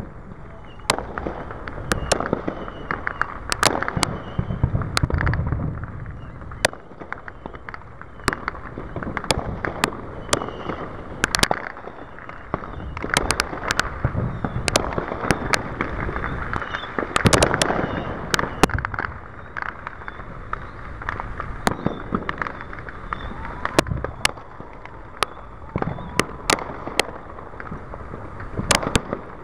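Aerial fireworks bursting: a steady run of sharp pops and bangs at irregular intervals, with crackle between them and a thick cluster of bursts a little past halfway.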